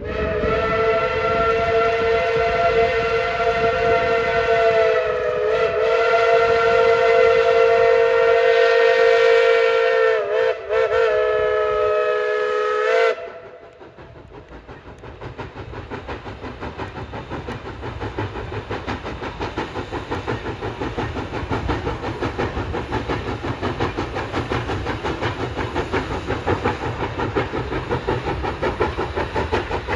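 Steam locomotive's chime whistle blowing one long chord of several notes for about thirteen seconds, faltering briefly near the end before it cuts off sharply. Then the locomotive's rhythmic exhaust chuffs and hiss build steadily louder as it works.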